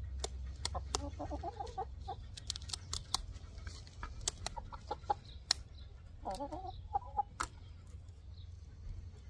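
A hen clucking twice in short calls while held for a wing clip, with many sharp clicks of scissors snipping her flight feathers.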